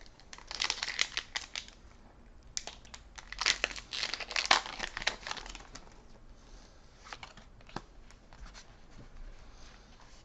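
Foil booster pack wrapper crinkling and tearing open in dense bursts over the first five seconds or so, followed by a few light rustles and clicks of trading cards being handled.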